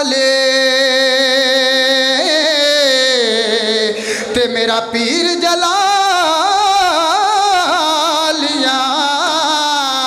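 A man singing solo into a microphone over a loudspeaker system, an ornamented devotional melody. He holds one steady note for about two seconds, slides down in pitch, then sings wavering, melismatic phrases.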